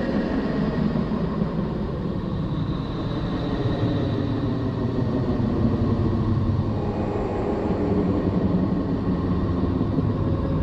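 The 'sound of Neptune', a sonification of space radio data played as audio: a steady deep rumbling drone with faint high steady tones over it.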